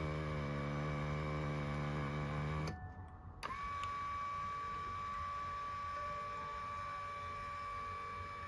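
Massage cushion's electric gear motor running with a low buzzing drone, the 'boo' noise the cushion had developed. After a short break near the middle, a steady high-pitched whine takes over.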